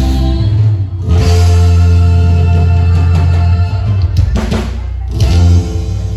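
Loud band music with drum kit, bass and guitar. A few drum hits come around four to five seconds in, then the music eases to a quieter held note near the end.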